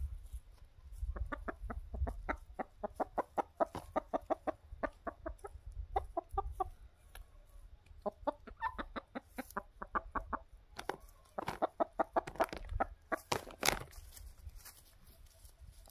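Domestic hens clucking in quick runs of short, repeated clucks. The clucks start about a second in and grow louder and denser in the last few seconds.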